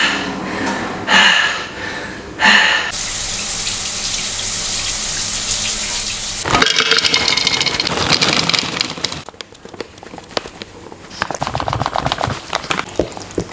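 Shower running: water spraying from a handheld showerhead, a steady hiss for several seconds. The hiss fades after about nine seconds, and quieter clicks and rustles follow.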